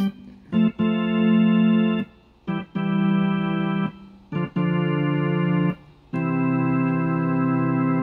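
Casio WK-245 digital keyboard playing a church-organ voice: four held chords, each sounding steadily for about a second and a half with short gaps between.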